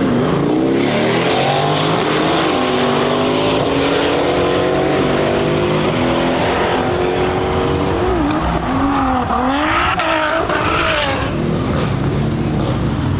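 Mercedes-AMG GT R Pro's twin-turbo 4.0-litre V8 with an Fi aftermarket exhaust, accelerating hard from a drag-race launch. The pitch climbs through the gears and drops back at each upshift, mixed with a second car's engine. Near the end the engine revs rise and fall several times in quick succession.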